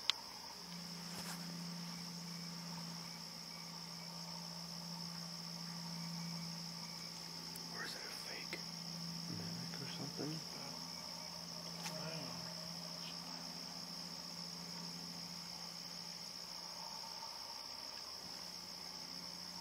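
Night insect chorus of crickets chirring in one continuous high-pitched band, over a steady low hum. A few faint ticks and rustles come through near the middle.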